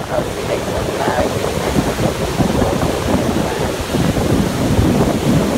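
Ocean surf washing up a sandy beach, foaming water rushing in and draining back in a steady hiss, with wind rumbling on the microphone.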